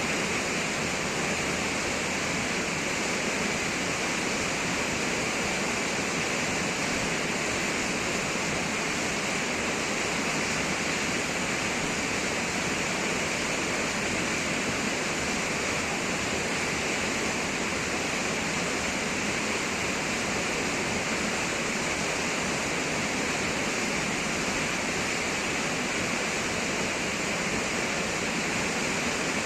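Düden Waterfall: water pouring and rushing as one steady, unbroken hiss.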